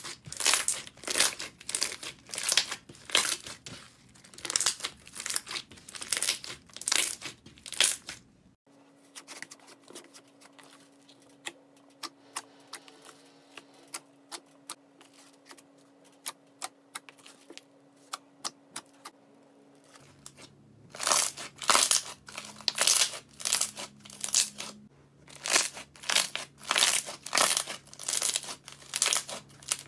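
Slime squeezed and kneaded by hand, its trapped air popping in quick sharp crackling clicks, several a second. In the middle there is a quieter stretch of sparse, soft pops, then the dense crackling returns near the end.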